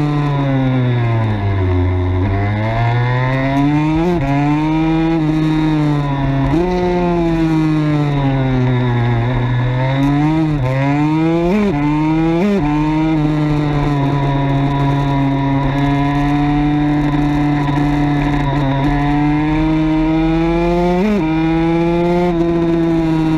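KTM 85 SX two-stroke single-cylinder engine at race speed. Its pitch drops in the first couple of seconds and climbs again, rises and falls through corners with several sharp flicks in pitch, then holds steady at high revs for several seconds.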